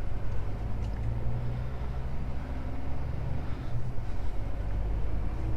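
Semi-truck's diesel engine running at low revs, heard from inside the cab: a steady low rumble.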